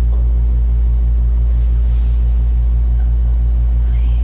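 Loud, steady low hum of a kitchen fan motor running, with a fast, even throb.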